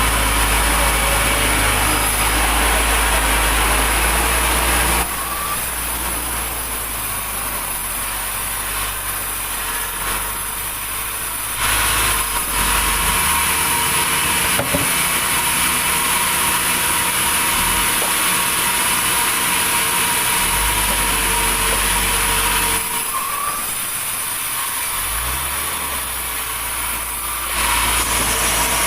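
Engine-driven sawmill running steadily with a high whine, its saw cutting wood. The sound drops to a quieter stretch about five seconds in and again near the end, then comes back up to full loudness each time.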